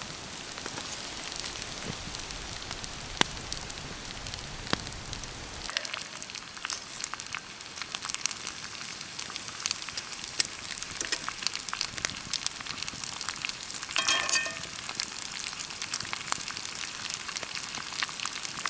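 Vegetables sizzling on a grill over a crackling campfire: a steady hiss with many sharp pops and crackles. A low rumble drops away about six seconds in, and a brief squeak sounds about fourteen seconds in.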